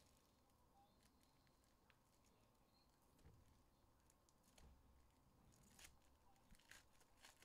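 Very faint crackling of a foil hockey-card pack wrapper being torn open and handled: a scattering of brief crinkles, the clearest about six seconds in and near the end.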